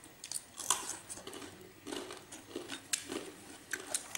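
Light, scattered clicks and taps of eating utensils against dishes and food containers, irregular and spread through the few seconds.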